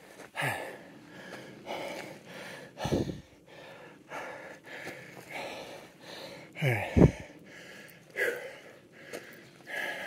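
A hiker walking on a gravel road and dirt trail, footsteps crunching in a steady rhythm of about one to two steps a second, with breathing heard between them. Louder low thumps come at about three and seven seconds in.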